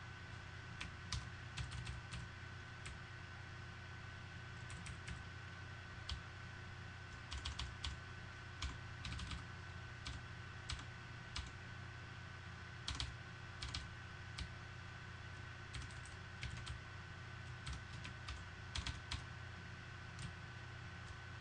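Computer keyboard typing: irregular clusters of keystroke clicks with short pauses between them, over a faint steady hum.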